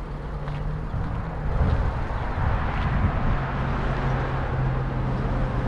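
A motor vehicle's engine running nearby: a steady low hum that drops a little in pitch about halfway through, over outdoor traffic noise.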